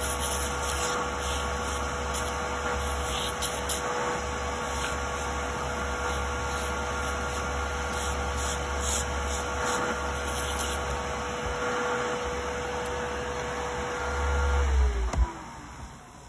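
Nail dust collector's suction fan running with a steady hum and whine, switched off about fifteen seconds in, its pitch falling as it winds down.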